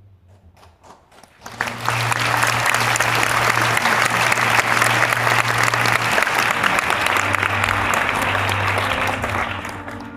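Theatre audience applauding at the end of a musical number. A few scattered claps come first, then full loud applause about a second and a half in, which thins near the end as the orchestra's low held note carries on underneath.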